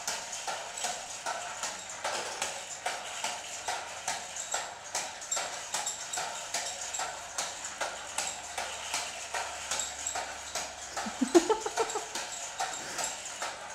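Homemade air-powered RC car running on 60 psi of compressed air. Its syringe-piston engine ticks and puffs in a steady, even rhythm of about two strong ticks a second.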